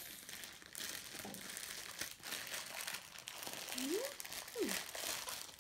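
Clear plastic bag crinkling and crackling as it is handled and worked open by hand, with a brief rising-then-falling hum from the child about four seconds in.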